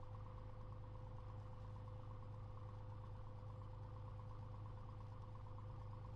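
Cessna 182's piston engine and propeller running steadily at low power, heard inside the cabin as an even drone with a constant hum.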